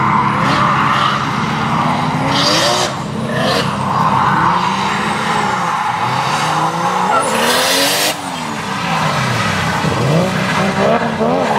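Toyota JZX100 drift car's 490 hp engine revving hard through a drift, its pitch rising and falling as the throttle is worked, with bursts of tyre noise on wet tarmac, the loudest about eight seconds in. Near ten seconds the revs drop low and then climb again.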